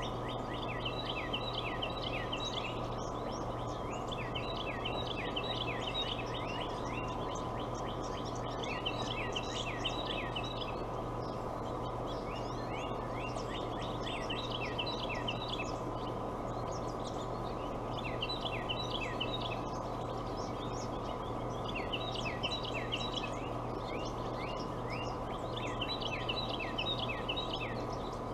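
A songbird singing a quick run of chirping notes, repeated about every four seconds, over a steady low electrical hum.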